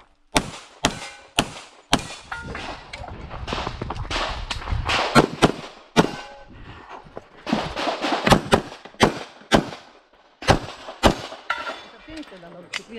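Pistol fire from an Infinity 2011 chambered in .40 S&W during an IPSC stage run: a long string of sharp shots, mostly about half a second apart with some quick pairs. A busier stretch of fire comes between about two and six seconds in, and there is a short pause near ten seconds.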